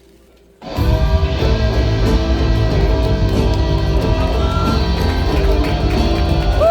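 Curtain-call music from a stage musical: a loud band number led by guitar, with a heavy low end, bursting in suddenly under a second in after a short hush.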